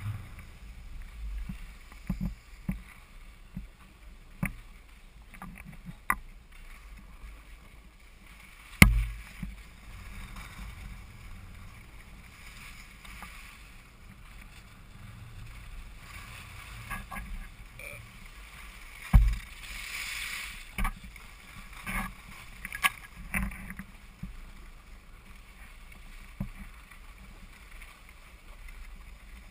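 Skis sliding and carving on packed snow: a steady hiss of ski edges on the groomed run, broken by irregular knocks and clatter. The sharpest knocks come about nine seconds in and again about nineteen seconds in, the second followed by a longer scraping hiss of skis skidding through a turn.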